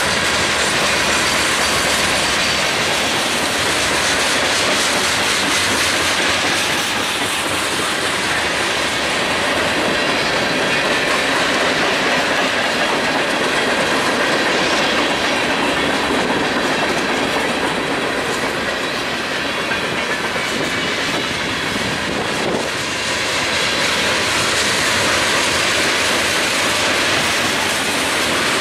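Freight cars of a BNSF mixed freight train rolling past close by: a loud, steady rumble of steel wheels on rail with clicking as the wheels cross rail joints.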